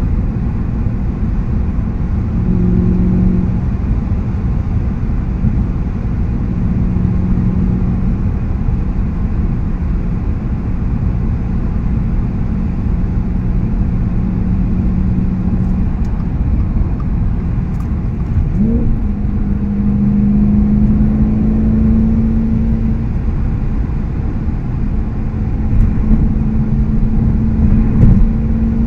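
Audi S5 with an AWE Tuning aftermarket exhaust, heard from inside the cabin at cruising speed: a steady low exhaust drone and engine note over road rumble. A little past halfway the engine pitch rises quickly and then holds steady at the higher revs.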